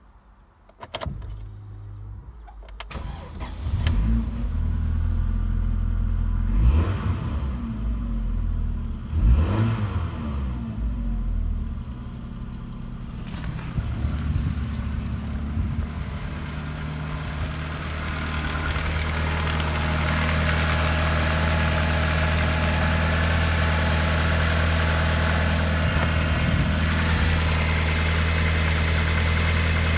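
Ford Mondeo 1.8i (RKA/RKB) four-cylinder petrol engine being started a few seconds in after a couple of clicks, revved twice, then settling into a steady idle.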